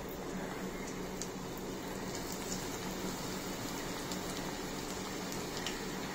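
Onion pakoda batter frying in hot oil in a stainless steel pan: a steady sizzle with scattered small crackles.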